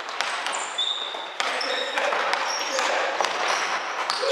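Basketball game on a wooden gym floor: the ball bouncing on the court and sneakers squeaking in short high chirps, echoing in the hall.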